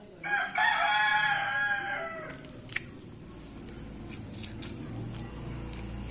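A rooster crowing once, a single call of about two seconds near the start that falls in pitch at the end. A low rumble builds in the background through the second half.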